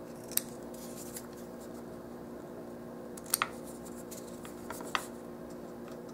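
Small scissors snipping paper in a few short, sharp cuts: one less than half a second in, a quick double snip about three and a half seconds in, and another near five seconds, over a steady low hum.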